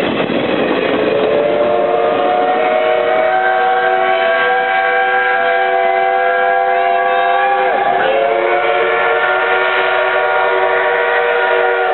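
Steam locomotive whistle held in one long blast, several tones sounding together, coming in about a second in over the rumble of the passing coaches and dipping briefly in pitch about two-thirds through before steadying again.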